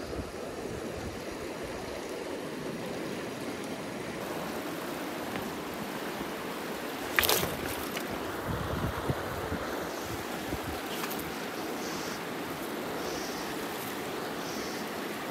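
Steady rush of a fast, rocky mountain creek pouring over and around boulders, with a single sharp knock about seven seconds in.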